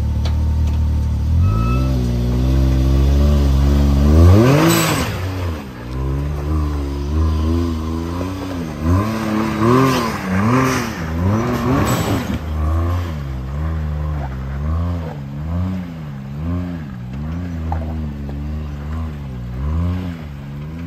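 Can-Am side-by-side engine revving in repeated throttle blips, rising and falling about once a second, as it crawls up a rock ledge. A bigger rev comes about four seconds in, and there are a few sharp knocks against the rock.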